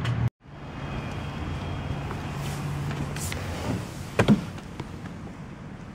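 A car engine idling with a steady low hum that fades out past the middle. A sharp double knock about four seconds in is the loudest sound.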